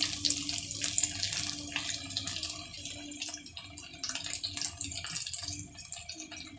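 Potato seekh kababs frying in hot oil: a steady sizzle with many fine crackles.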